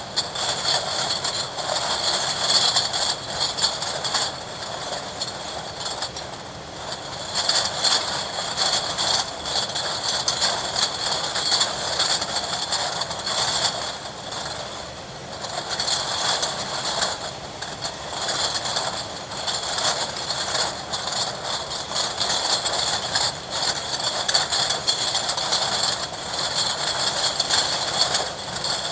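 Milk bottling plant running: a dense, continuous clatter of bottles and machinery that swells and eases every several seconds.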